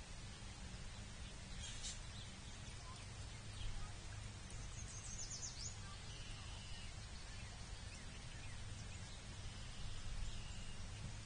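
Outdoor ambience with a steady low hum and hiss, and faint, scattered calls of wild birds, including a quick series of high, downward-sliding notes about five seconds in.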